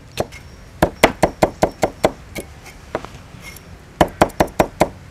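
Kitchen knife chopping red chillies on a wooden cutting board: two quick runs of sharp chops, about five or six a second, with a few single strikes between.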